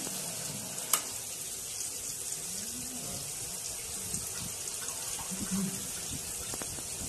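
Rice water boiling in an aluminium pot, a steady bubbling hiss, with one sharp clink about a second in.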